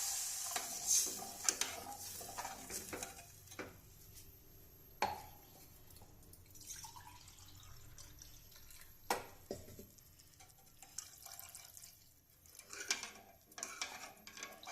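A few sharp clinks of a utensil against a cooking pot, with faint stirring and dripping of water, just after water has been added to the fried paste for a kadha. The hiss of the water meeting the hot oil fades out at the start.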